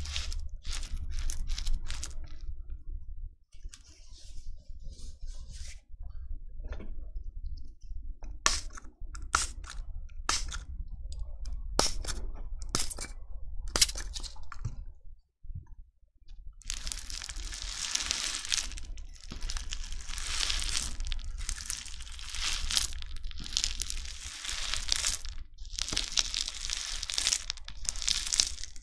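Crunchy bingsu slime being handled close to the microphone, crackling and popping. The crackles are scattered for the first half, then turn dense and nearly continuous from a little past the middle, with a few short breaks.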